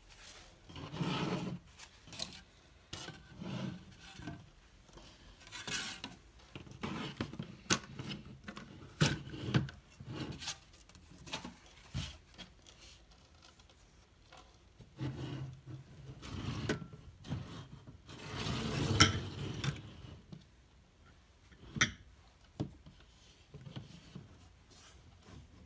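Irregular tabletop handling noises: glass water dishes and a plastic watercolor palette being set down and slid across the table, with scattered clinks, taps and scrapes. The longest scraping stretch comes a little past the middle, followed a few seconds later by a single sharp click.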